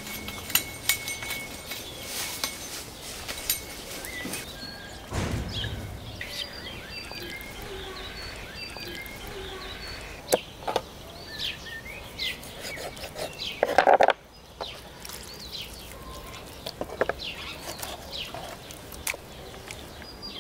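Small birds chirping and twittering, with scattered light clicks and knocks. About two thirds of the way through, one brief loud sound stands out above the birdsong.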